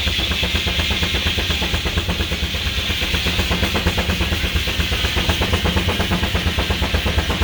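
Steam traction engine running with a steady, rapid beat of about six pulses a second and a heavy low rumble.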